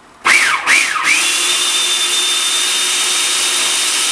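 Food processor motor pulsed twice with short rising-and-falling whines, then run continuously with a steady high whine, chopping a thick pesto of nuts, basil and spinach.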